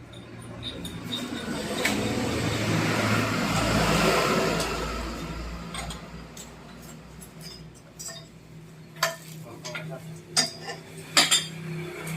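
A small engine runs steadily while a rushing noise swells and fades over the first half. Later come several sharp metallic clinks and knocks, typical of steel pipes and tools at a machine-drilled water well.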